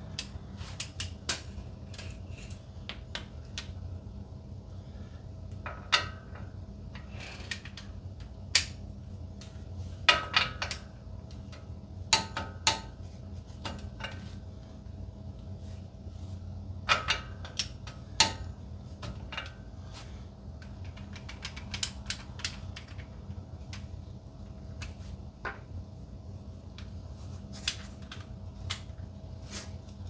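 Irregular metallic clinks and clicks of hand tools and sockets being handled, metal against metal, some coming in quick little clusters, over a steady faint hum.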